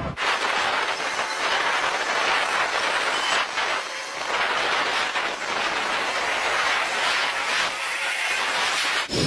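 Antonov An-124 on the ground: a steady hissing, rushing mechanical noise while its nose visor is raised, cutting in and out abruptly.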